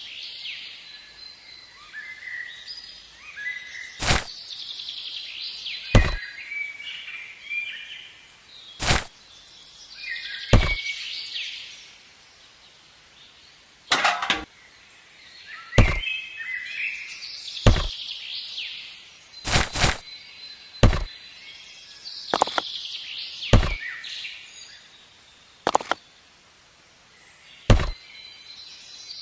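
Birds chirping and twittering, with sharp knocks every one to three seconds, about fourteen in all.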